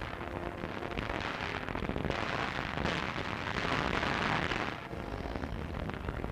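Shellfire and exploding artillery shells as a continuous noisy din, growing louder about two seconds in and falling away sharply about five seconds in.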